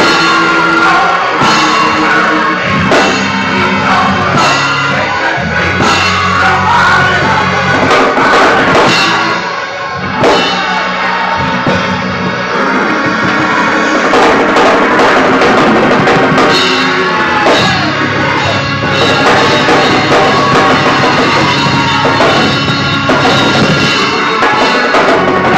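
Live drum kit and organ playing together: sustained organ chords under a driving beat of bass drum, snare and cymbals.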